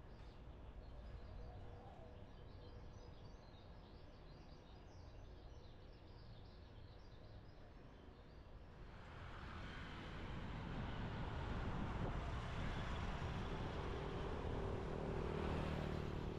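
Street ambience heard from a bicycle: faint bird chirps over a low background at first, then road traffic swells from about nine seconds in as a vehicle comes close and stays loud, with a steady engine hum near the end.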